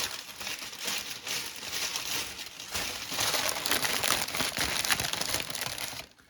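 Packaging material crinkling and rustling as it is handled, louder in the second half and stopping suddenly near the end.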